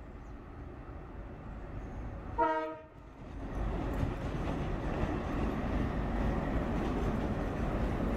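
Indian Railways diesel locomotive hauling a passenger express approaches at speed, its rumble growing. It sounds one short horn blast about two and a half seconds in, then the engine and coaches pass close in a loud, steady rush of engine and wheel noise with faint wheel clicks.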